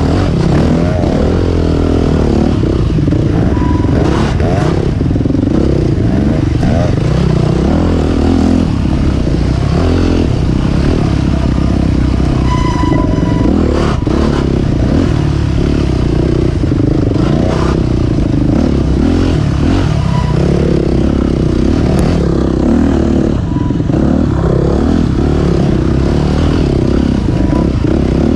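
Off-road dirt bike engines running loud and steady close by while riding a woods trail, with clatter and scraping from the rough ground and brush.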